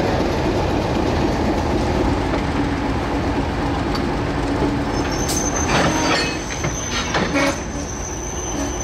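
Railway carriages being hauled slowly over yard track, rolling and rumbling; about five seconds in a thin high wheel squeal sets in on the curving track, with several knocks from the wheels over rail joints.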